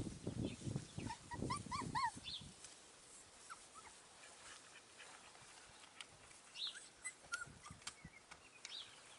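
Four-week-old puppies whining: a quick run of about five short, high, arching squeaks a second or two in, then a few fainter squeaks later. Rustling and scuffing in the grass fills the first couple of seconds.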